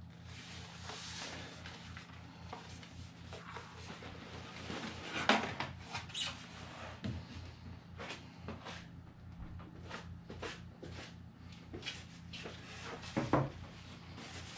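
Styrofoam packing inserts rubbing and squeaking as they are handled and shifted in the foam shipping box, with scattered small knocks and rustles; the loudest squeaks come about five seconds in and near the end.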